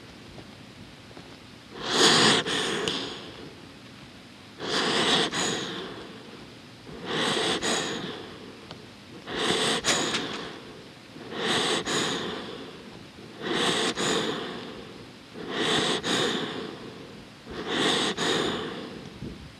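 Small dog breathing slowly and noisily through its nose as it rests, heard very close up: eight breaths, one about every two seconds.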